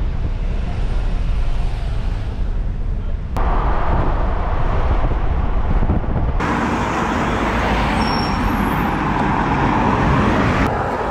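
Steady road noise inside a moving car: low cabin rumble with tyre and wind roar over it. The roar gets louder and brighter in abrupt steps, the louder stretches at motorway speed.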